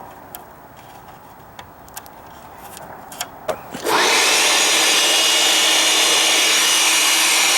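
Light handling clicks and rustles. About four seconds in, an electric air blower switches on with a loud, steady rush of air and a steady motor whine as it blows dust out of the TV set.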